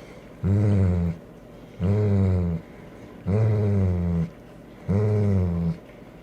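A dog making low, drawn-out growling vocalizations, four in a steady rhythm about a second and a half apart, each lasting under a second.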